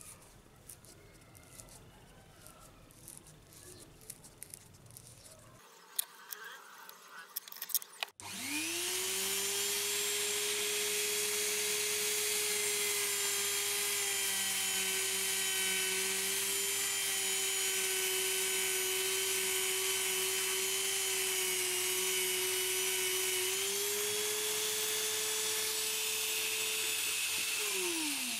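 Mini rotary tool (die grinder) with a felt buffing wheel, switched on about eight seconds in after a few faint clicks. It runs with a steady high whine while buffing a strip of wood, then winds down at the very end, its pitch falling.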